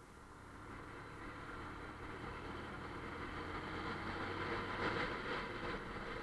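Bajaj Pulsar 150's single-cylinder engine running under way, with wind and road noise. The sound grows steadily louder to a peak about five seconds in, then eases slightly.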